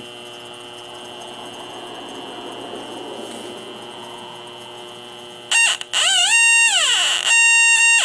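Yokogawa H10B heated-diode halogen leak detector: a steady hum with a high whine, then about five and a half seconds in a loud squawk whose pitch swoops down and back up, drops out briefly and returns as a steady high tone. The squawk is its alarm for halogen refrigerant gas reaching the heated-diode sensor at the probe.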